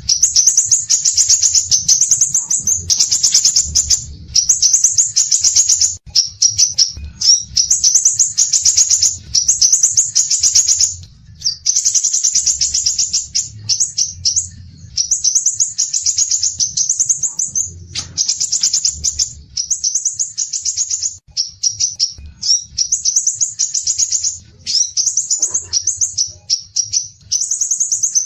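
Songbird singing rapid, high-pitched chattering trills in bursts of one to two seconds with short breaks between them, from a masteran training recording. A faint low rumble runs underneath.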